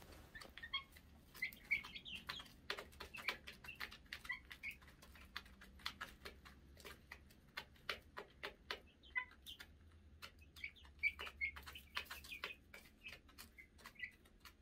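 Young chickens pecking feed from the tray of a plastic chick feeder: a faint run of quick, irregular taps, with short soft chirps among them.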